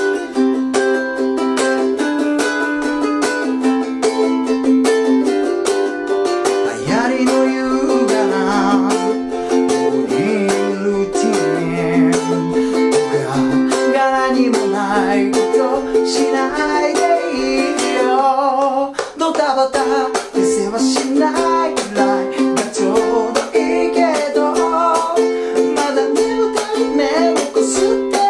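Ukulele strummed in a fast, driving rhythm through a C–E7–Am–G7 interlude, then a man sings the verse over it. The strumming stops for a moment about two-thirds of the way in, then picks up again with clipped, chopped strokes under the singing.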